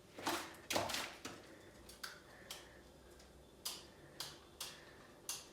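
Wall light switches being flicked on and off, a string of about nine sharp clicks at uneven spacing, the loudest near the start. These are newly installed two-way and intermediate switches being tried in turn.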